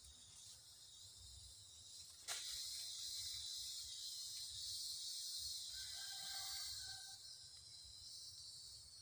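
Steady high-pitched insect chorus in the forest, growing louder after a click about two seconds in, with a faint pitched call about six seconds in.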